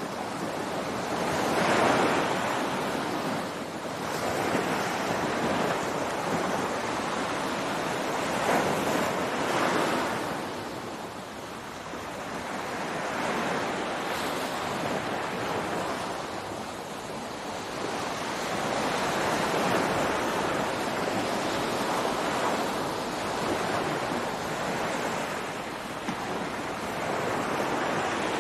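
Ocean surf: waves breaking and washing up a beach, the rush of noise swelling and easing every few seconds.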